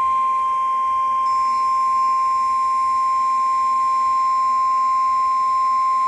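NOAA Weather Radio warning alarm tone: a single steady 1050 Hz tone over faint radio hiss. It signals that a warning broadcast is about to follow.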